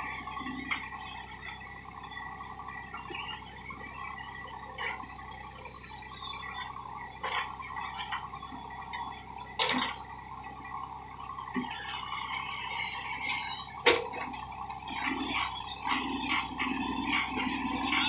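Tractor-mounted backhoe loader digging a trench: a steady high whine from the running machine, shifting slightly in pitch as it works, with scattered knocks and scrapes as the bucket breaks through the soil and clods.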